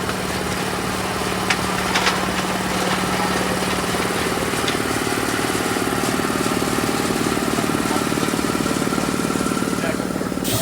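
A small engine or motor running steadily with a fast, even pulse, with a couple of light clicks about two seconds in, then cutting off abruptly near the end.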